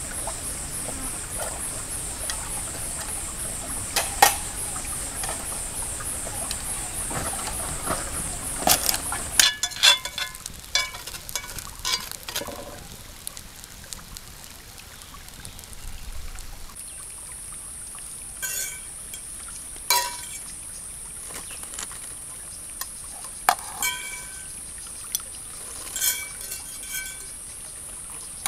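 Metal fork and spoon clinking and scraping against a cast-iron skillet and pot, with a string of sharp, ringing clinks in the second half. Underneath are a steady high-pitched insect drone and, in the first third, the rush of a stream.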